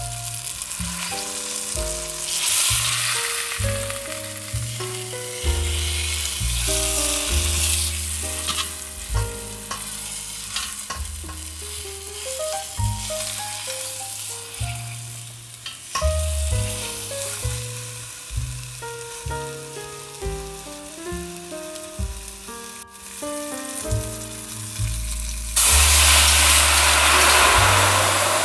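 Flour-dredged beef roast searing in butter and olive oil in a stainless steel pot, sizzling steadily, with a few clicks of metal tongs turning it. Near the end liquid poured into the hot pot sets off a sudden, much louder sizzle. Background music with a melody and bass plays throughout.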